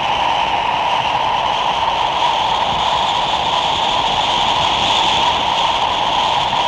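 Steady hissing rush of a steaming pot mixed with strong wind, even and unbroken throughout.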